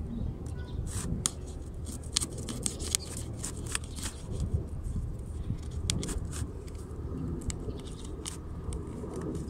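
Fingers and fingernails picking and scratching at a paper seal sticker on a cardboard box, making irregular sharp clicks and scrapes. A steady low rumble runs underneath.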